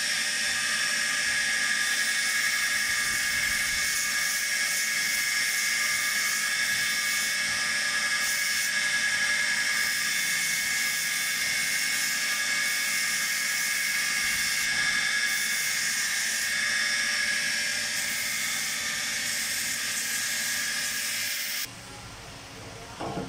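Belt sander running with a steady high whine and hiss while a rosewood walking-stick handle is pressed against its abrasive belt. The sound stops abruptly near the end.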